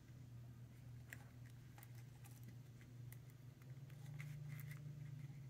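Faint scattered ticks and rustles of die-cut cardstock pieces being handled and fitted together, over a steady low hum.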